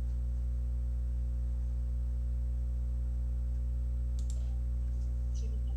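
A steady low electrical hum with a thin high whine above it, and a few faint clicks about four and five and a half seconds in.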